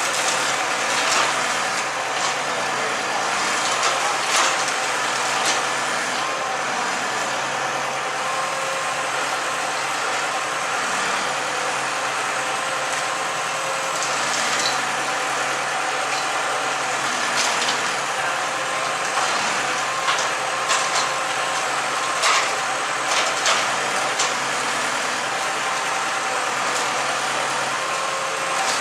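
Large bonfire burning, a steady roar of flames with scattered sharp crackles and pops.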